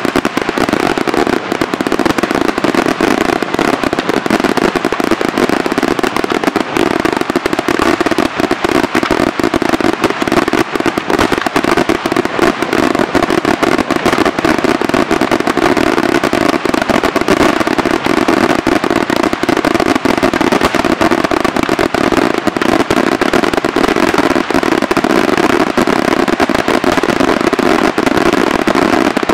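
Daytime aerial fireworks by Senatore Fireworks: a dense, unbroken barrage of bangs and crackling reports from many small shells bursting overhead.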